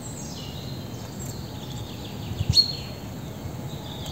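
Faint wild birdsong: thin, high chirps gliding downward, over a steady low background noise, with one short sharp click about two and a half seconds in.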